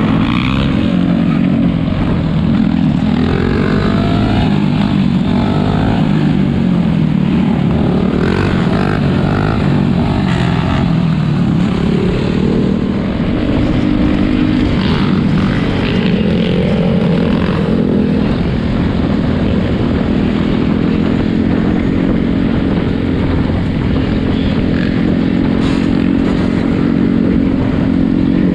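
Several four-wheeler (ATV) engines running and revving at once, their pitches rising and falling over one another.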